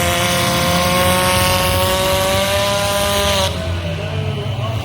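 Demolition derby car engine held at high revs, a steady high-pitched whine that edges up slightly and then drops away about three and a half seconds in, over the low rumble of other running derby cars.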